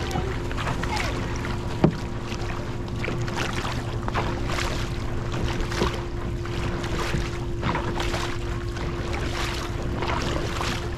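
Dragon boat paddles pulling through the water in a steady rhythm, a splash about one and a half times a second, over a steady low rumble.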